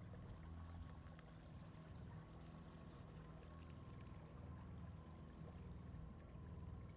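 A river longboat's motor running steadily, faint and low-pitched.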